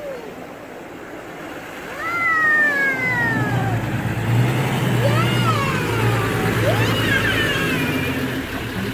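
Four-wheel-drive's engine running at low revs, coming in about three seconds in and then holding steady. High sliding calls sound over it several times.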